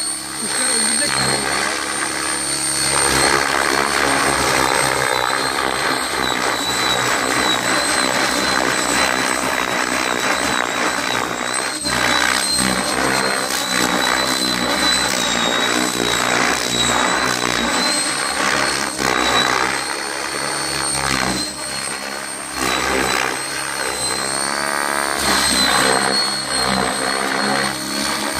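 Electric 700-size RC helicopter flying low, its main rotor blades spinning at about 2040 rpm headspeed and buzzing loudly under a steady high whine. The sound swells and fades, rising and falling in pitch as it passes close and swings through manoeuvres.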